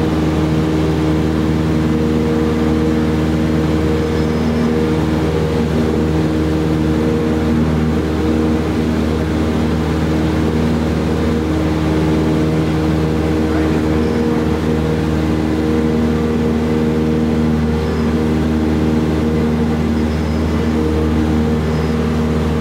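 Cessna 172SP's four-cylinder Lycoming engine and propeller running steadily during the climb-out, heard inside the cabin as an even drone over constant airflow noise.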